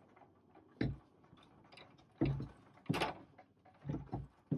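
A circuit card in a 1976 Wang 2200F being rocked and pulled against a stuck backplane connector. About five irregular knocks and clicks of the board in its card cage, some with a low thud.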